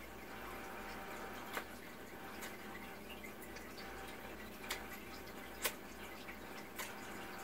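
Close-up eating sounds of sauce-coated crab legs handled and eaten by hand: a handful of sharp, wet, sticky clicks and smacks spread through, the loudest a little past the middle, over a steady faint hiss.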